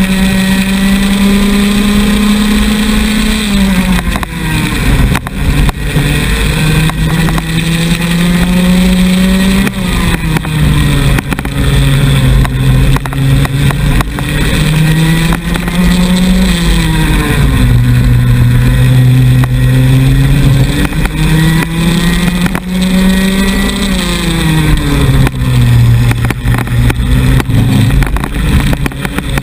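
Onboard sound of a racing kart's two-stroke engine at full throttle. Its pitch climbs steadily along each straight, then drops sharply as the kart brakes for a corner, about five times, with other karts' engines close by.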